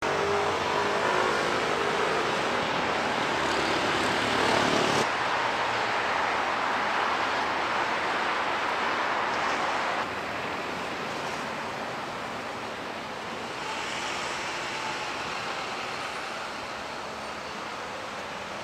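Steady urban traffic noise over a river. For the first five seconds a low engine hum runs under it and stops abruptly; about ten seconds in the noise drops to a quieter, even level.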